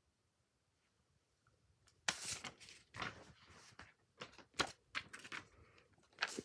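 Paper inserts being handled: an irregular run of rustles and crinkles that starts about two seconds in.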